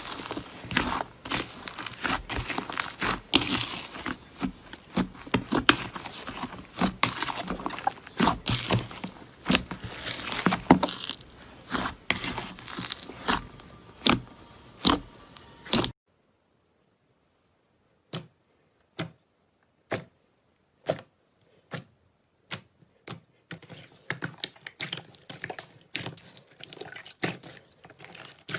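Slime being squeezed and worked by hand, with dense crackling and popping clicks. After a short silence comes a run of single sharp pops about once a second, and then the crackling picks up again near the end.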